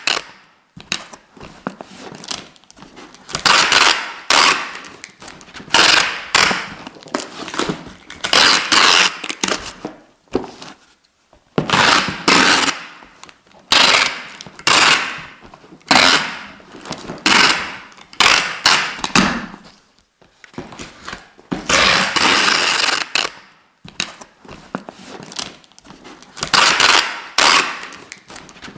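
Adhesive tape being pulled in quick rips, each a second or less of crackling screech. The rips come one after another, roughly every couple of seconds, with short pauses between them.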